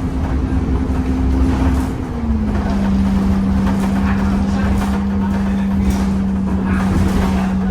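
Temsa Avenue LF 12 city bus running, its DAF engine and ZF driveline giving a deep rumble with a steady whine on top. The whine slides down in pitch about two seconds in and then holds at the lower note.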